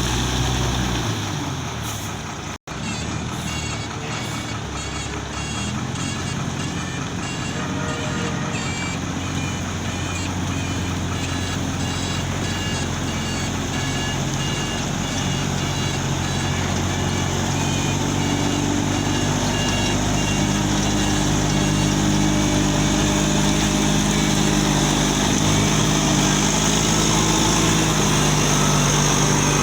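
Road vehicle running on the road: a steady engine and road noise, with the engine note climbing slowly through the second half as it speeds up. The sound drops out completely for an instant about two and a half seconds in.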